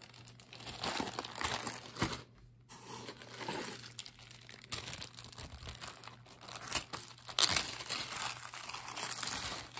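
Clear plastic zip-top bags crinkling and rustling as they are handled and pulled open. There is a short lull about two seconds in, and the loudest crinkles come about seven and a half seconds in.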